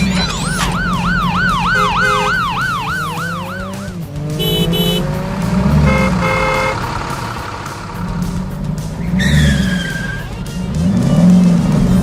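Vehicle sound effects over a low, repeating rumble: a fast wavering siren wail for about three and a half seconds, then two short horn blasts a second or so apart, and a brief falling squeal near the end.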